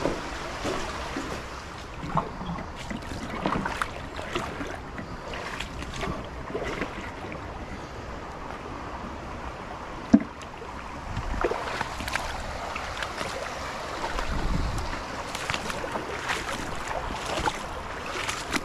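Water sloshing and splashing with scattered knocks and clatter, like footsteps wading through a shallow, stony creek, with wind buffeting the microphone in a few low rumbles.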